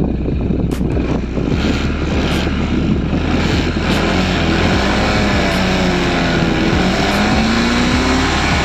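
Stock exhaust of a 2023 Honda ADV 160 scooter's single-cylinder engine running on the move. About four seconds in, a clear engine note comes through and rises and falls with the throttle.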